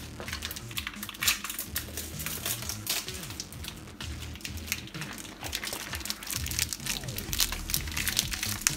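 Plastic packaging crinkling and crackling in irregular bursts as a vacuum-packed piece of corned beef silverside is handled, over background music.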